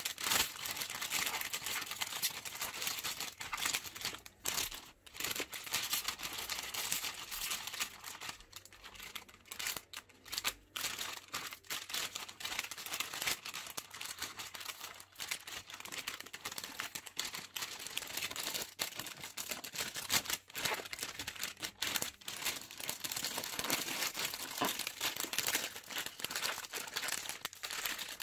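Crinkling and rustling of a red metallic plastic gift bag handled by gloved hands, being smoothed and then bunched together at the neck. The crackle is almost continuous, with a couple of brief pauses.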